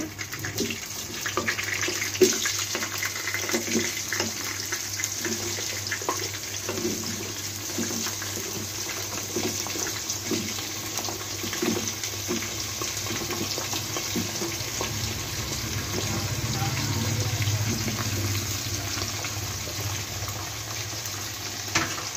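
Hot oil sizzling steadily in a karahi as slices of raw potato are dropped in by hand one after another, each landing with a soft knock.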